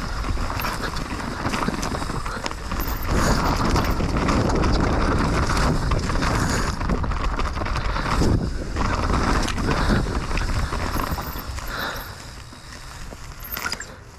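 Mountain bike rolling down a dirt trail, tyres running over loose dirt, with wind buffeting the microphone. It eases off and quietens about twelve seconds in.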